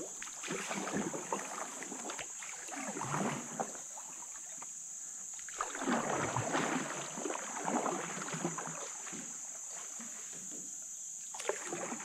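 Canoe paddle strokes in calm river water: irregular swirls and drips of water off the paddle blade every few seconds, strongest about six to eight seconds in. Under them runs a steady high-pitched buzz.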